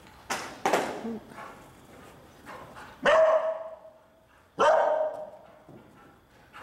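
Dog barking: a few loud, sharp barks, the two loudest about a second and a half apart.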